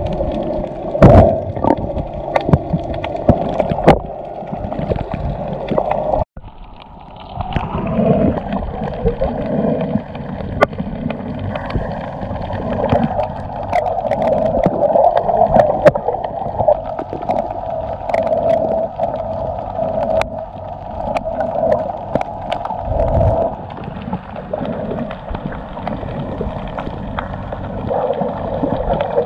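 Underwater sound picked up by a snorkeler's camera held under the water: a muffled, steady gurgling water noise with scattered clicks. It cuts out for a moment about six seconds in.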